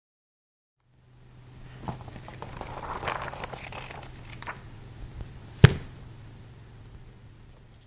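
Logo sound effect: a noisy rustle with scattered clicks over a steady low hum swells up, one sharp hit lands about five and a half seconds in, and it fades out near the end.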